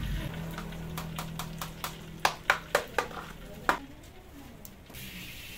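Sharp clinks and knocks of kitchen utensils and dishes being handled, about ten in three seconds, over a steady low hum. A soft hiss sets in near the end.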